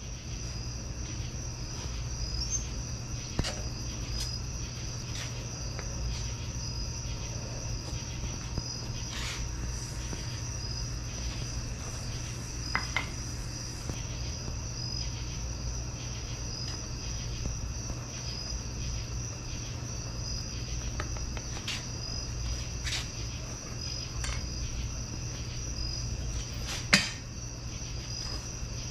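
Crickets chirping steadily over a low hum, with a few faint clicks and one sharp knock near the end.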